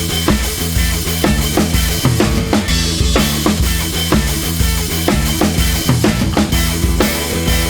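Background music with a steady drum-kit beat over a repeating bass line.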